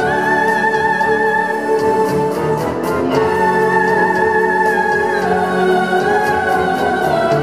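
Soprano singing long, high held notes with vibrato, moving to new pitches about three and five seconds in, over keyboard piano and an orchestral backing track.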